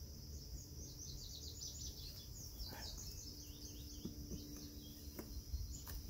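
A songbird chirping a quick run of short falling notes over a steady high-pitched insect trill. In the second half a low, steady buzz of honeybees lasts a couple of seconds.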